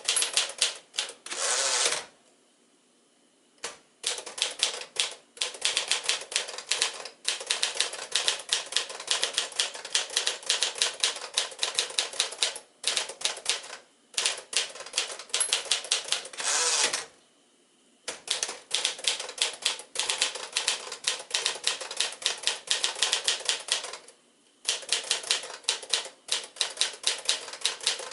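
1953 Smith-Corona Silent manual typewriter being typed on: quick runs of key and typebar strikes, several a second, broken by three short pauses.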